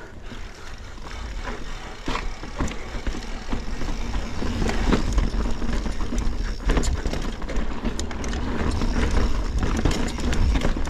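Mountain bike rolling over a rocky trail section: a steady low rumble from tyres on rock and wind on the microphone, with frequent clicks and knocks as the bike rattles over the rocks. It gets louder from about four seconds in.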